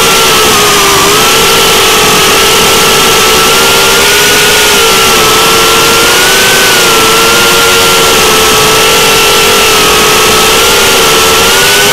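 Motors of a KingKong 90GT micro FPV quadcopter whining in flight, their pitch drifting up and down with the throttle, under a loud, steady hiss.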